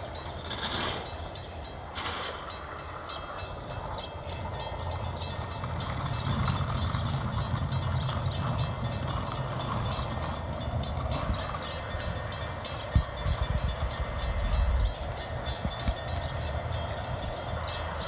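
A distant train approaching on the line, a steady low rumble growing louder, with a sharp knock about two-thirds of the way through.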